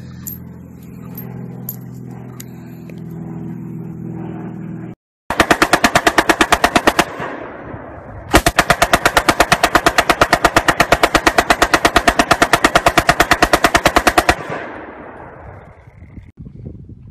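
Belt-fed machine gun firing full-auto: a burst of about two seconds, then after a short pause a long burst of about six seconds, each shot distinct. The first few seconds hold only a low steady hum.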